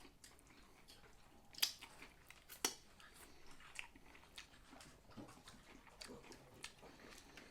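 Quiet, close-miked chewing with small wet clicks and crackles. There are two sharper crunches, about one and a half seconds in and again a second later.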